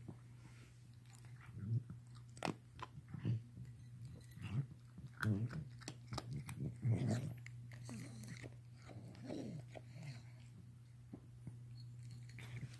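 A cat breathing noisily and irregularly, with snuffly, wet-sounding breaths and clicks coming in uneven bursts over a steady low hum. The owner finds this breathing strange.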